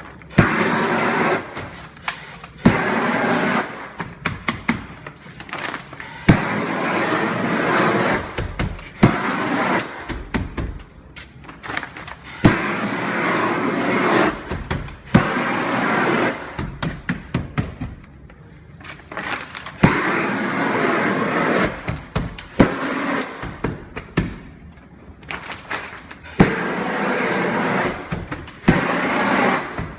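Shrinkfast propane shrink-wrap heat gun (18,000 BTU) firing in short bursts of a second or two, about eight times, to heat-weld a fold seam in the poly sheeting. Sharp clicks come between the bursts.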